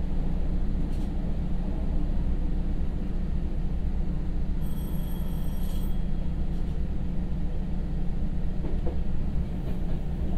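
KTR700 diesel railcar under way, heard from inside the passenger cabin: a steady low engine drone mixed with the rumble of wheels on the rails. A faint high-pitched whine comes in briefly about five seconds in.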